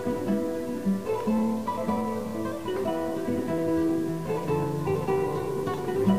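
Sped-up recording of an acoustic guitar passage in a metal song, with single plucked notes in a melodic line and no distorted guitars or drums.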